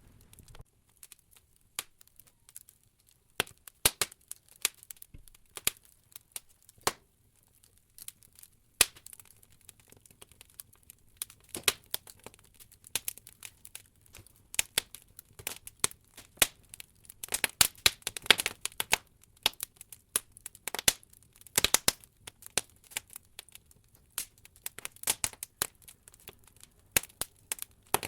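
Wood logs burning in an open fireplace, crackling with irregular sharp pops and snaps. The pops come in a busier run a little past the middle.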